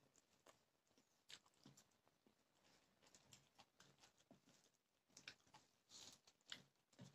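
Faint chewing and mouth sounds of someone eating rice with vegetables, with scattered soft clicks and smacks at irregular intervals.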